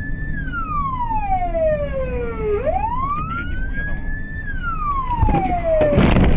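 A siren wailing in slow sweeps, falling, rising, then falling again, over road noise. Near the end comes a loud crash as cars collide.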